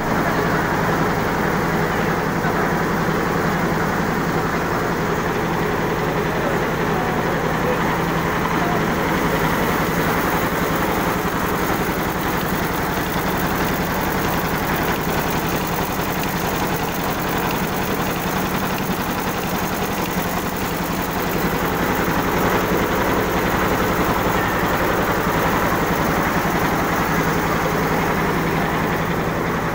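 Anti-hail net knitting machine running at speed: a steady hum under a fast, even mechanical clatter that does not let up.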